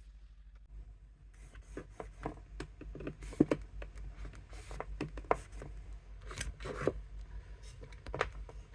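Irregular clicks, taps and scraping of small objects being handled and worked by hand, starting about a second in.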